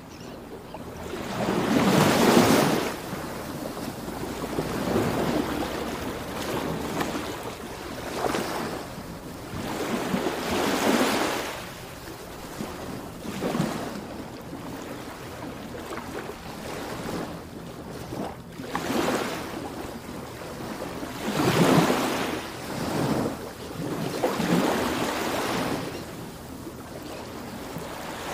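Ocean surf: waves breaking and washing in, the rush swelling and falling away every few seconds, with the strongest surges about two seconds in and again past twenty seconds.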